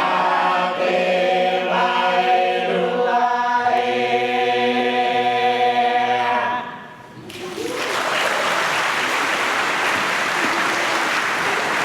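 Cook Islands church choir singing a cappella, closing on a long held chord that fades out about seven seconds in. After a short gap, an audience breaks into steady applause.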